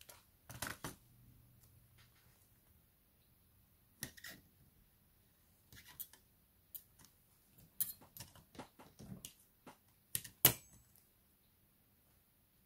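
Irregular light clicks and taps of small hand tools and tablet parts being handled during a tablet teardown, with a sharper pair of taps about ten seconds in.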